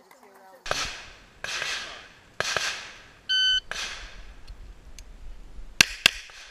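Pistol shots in a rough series, each trailing off in an echo, then a shot timer's short electronic start beep a little past the middle, followed by two quick, sharp pistol shots near the end, a double tap.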